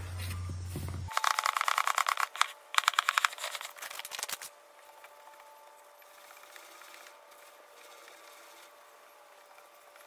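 Honda CB500F drive chain clicking rapidly over the rear sprocket as the wheel is turned by hand and the chain is wiped with a rag. The clicking comes in two runs of about a second and a half each, starting about a second in, after a low hum. Only faint room tone follows.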